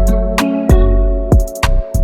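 Background music with a steady beat: drum-machine hits over a bass line and held guitar or keyboard chords.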